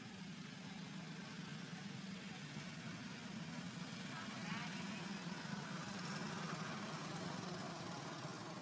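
Steady low hum of a distant engine, under a faint even hiss.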